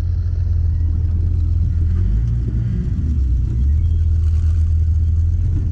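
Jeep engine running at low revs while rock crawling, a steady low rumble whose pitch shifts slightly a couple of times.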